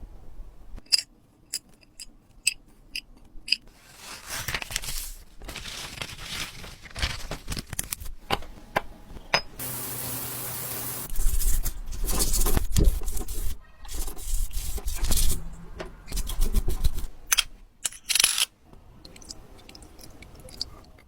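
Hand work on a watch: sharp little clicks of small metal parts and tools, then scraping and rubbing. A steady hiss runs for about a second and a half near the middle, followed by louder handling with a low rumble.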